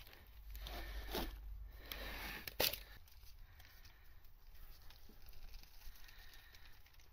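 Old engine oil draining from a BMW F10 M5's sump as the drain plug is unscrewed by gloved hand, spattering into a plastic sample cup and catch tray, with handling rustles. There are a few louder splashes and rustles in the first three seconds, the sharpest about two and a half seconds in, then only a faint trickle.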